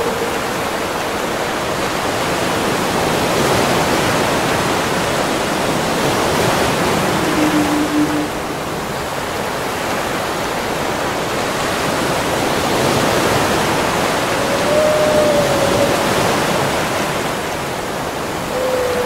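Two short wavering moans, one lower about seven seconds in and one higher about fifteen seconds in, presented as blue whale calls, over a steady loud rushing noise.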